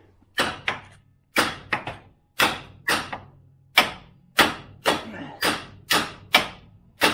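Repeated hammer blows on metal car parts: about a dozen sharp strikes, roughly two a second, each with a short ringing tail.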